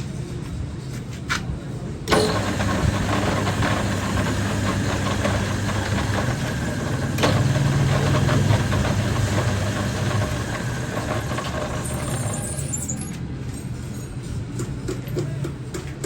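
Machinery running with a steady low hum. A louder, rougher mechanical noise cuts in suddenly about two seconds in, grows loudest midway and eases off near the end.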